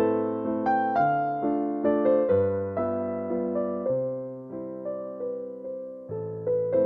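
Background music: piano playing slow chords and a simple melody, each note struck and left to fade.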